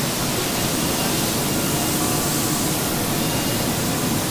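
Steady, even rushing hiss of a guitar-body sanding room, with dust-extraction air and handheld sanders running, and faint high whines coming and going.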